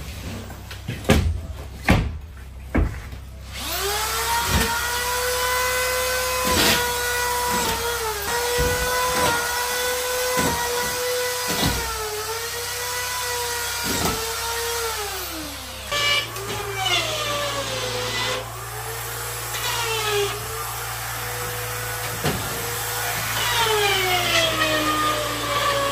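A handheld power tool, in use hanging sheetrock, running with a steady high whine that sags in pitch again and again as it takes load and now and then winds down and spins back up. Sharp knocks come in between.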